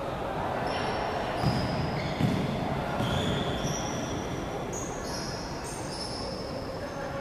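Basketball shoes squeaking repeatedly on the gym floor in short high squeals, with a ball bouncing twice about a second and a half in, all echoing in a large hall.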